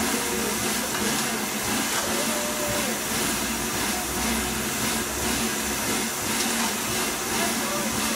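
Steady, loud hiss of steam escaping from the standing LNER B12 4-6-0 steam locomotive No. 8572.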